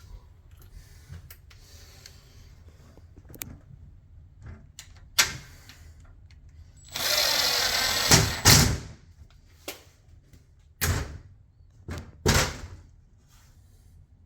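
A power drill runs for about a second, then several sharp knocks: the red oak cabinet door being shut against its strong magnetic catch and pulled open again.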